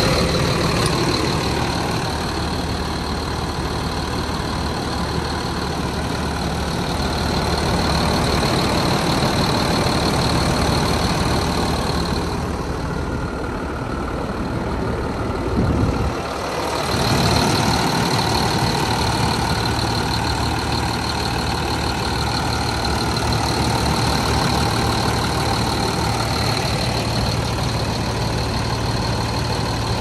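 Diesel engine of a heavy truck, a Mercedes-Benz MBE900, running steadily with a constant high whine over it. A little past the middle the whine drops out for a few seconds and there is a short low thump. Then it runs on at a different, steady pitch.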